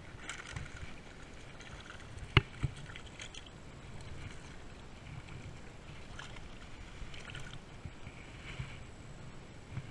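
Spinning rod and reel being handled: a sharp click about two and a half seconds in and a lighter one just after, with faint rustling and handling noise around them.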